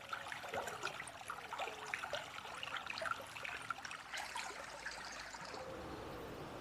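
Water trickling and babbling steadily.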